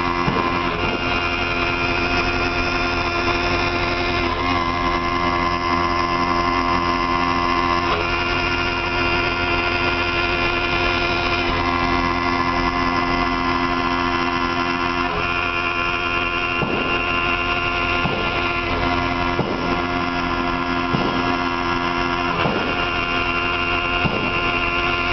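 CNC milling machine cutting aluminium with an end mill: the spindle runs steadily while the cutter works along an elliptical profile, giving a continuous machine whine whose tones shift every few seconds.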